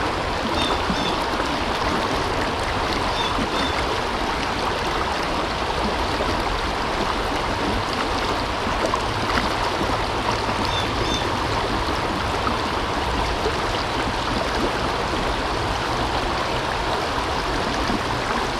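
Steady rush of river water flowing around the waders, with a few brief high chirps.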